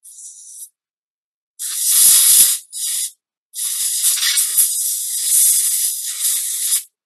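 Can of compressed-air duster hissing in bursts: a short faint one, two more, then a long one of about three seconds, blowing excess solvent out of a pistol's parts during cleaning.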